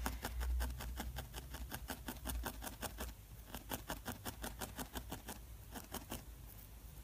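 A barbed felting needle stabbing repeatedly into wool, a quick, even run of ticks at about six a second.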